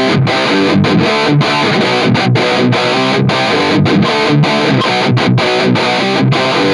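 Distorted electric guitar riff played through two DigiTech Whammy pitch-shift pedals in series: a Whammy 4 set an octave up and a Whammy 5 set an octave down, so the two shifts are meant to cancel back to the guitar's own pitch. Choppy chords with frequent short stops between them.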